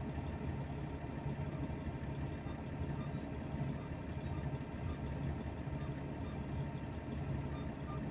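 Engine idling steadily with a low, even hum.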